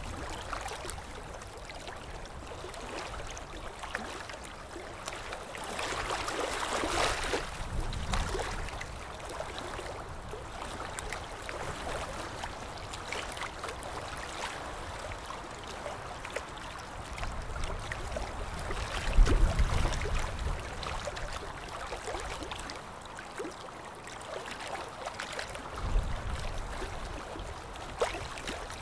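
Steady running-water noise, like a stream or bubbling water. It swells a little about a quarter of the way in, and a low rumble rises twice in the second half.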